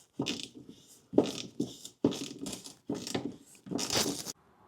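Hand tools working a fastener that needs two tools at once: a run of short rasping strokes, roughly one or two a second, the last one longer.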